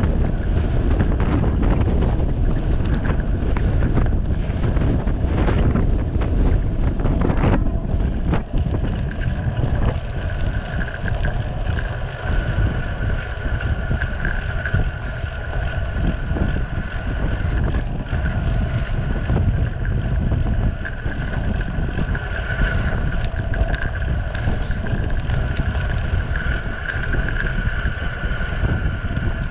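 Wind buffeting the microphone with rumbling tyres on a gravel road while descending at speed. About ten seconds in, a steady high-pitched whine joins and holds.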